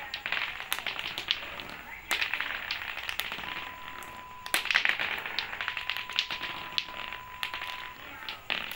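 Lato-lato clacker toy, its two hard plastic balls knocking together in sharp, irregular clacks as it is swung.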